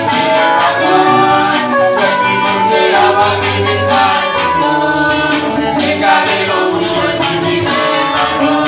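A mixed group of singers singing a Haitian konpa gospel song together in harmony into microphones, amplified through a PA.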